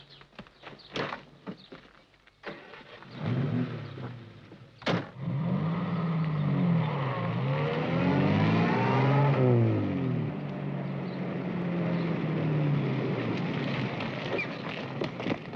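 Car engine starting, with a door slamming shut about five seconds in, then the engine pitch rising and falling several times as the car pulls away, before it settles into a steady run.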